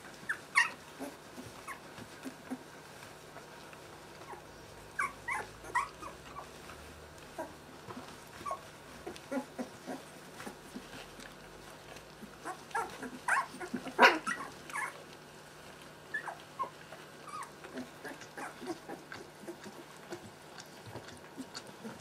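Two-week-old Siberian husky puppies whimpering and squeaking in short scattered bursts as they beg at their nursing mother. The loudest cluster comes about two-thirds of the way through.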